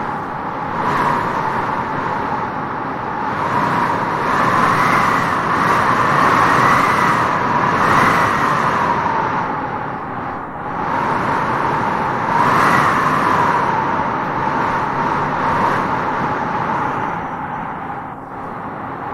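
Wind gusting through prairie grass: a steady rushing that swells and eases in long gusts, loudest about a third of the way in and again past the middle.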